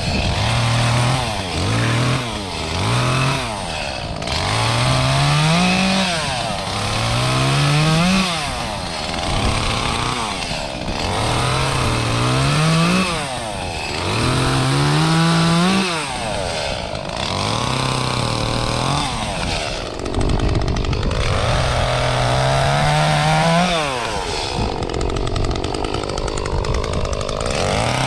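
Echo CS-352 two-stroke chainsaw cutting, its engine note rising in pitch and falling back again and again, about ten times.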